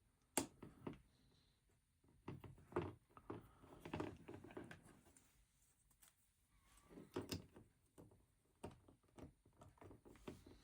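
Small plastic LEGO pieces being handled and pressed together: scattered soft clicks and clatters in a few short clusters, with a sharp click just after the start.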